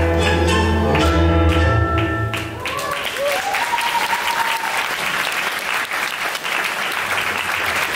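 Tango music ends on a held chord with deep bass about two and a half seconds in, and audience applause takes over.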